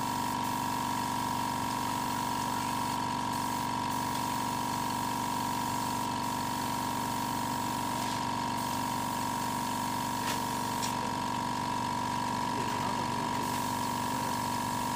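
Air compressor running with a steady, unchanging hum, supplying air to a paint spray gun.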